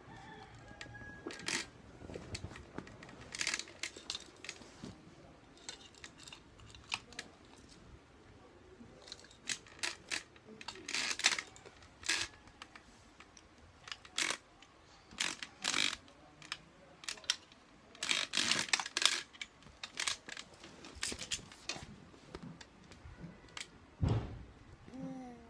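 Hanging plastic rattles and rings on a baby play gym clacking and rattling as a baby grabs and knocks them: irregular sharp clicks and short bursts of clatter, with a low thump near the end.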